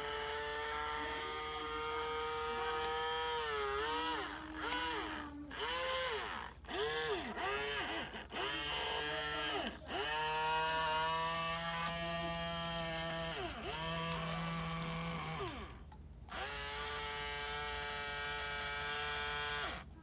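Small electric gear motors of a toy robot arm whining as they run, stop and start again several times. The pitch sags and climbs as each movement starts, stops or takes load, and for a while a second, lower-pitched motor runs along with the first.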